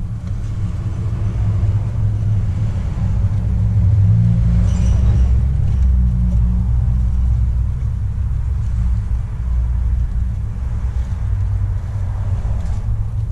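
A steady low rumble, like machinery or a motor running, with no clear rhythm or change in pitch.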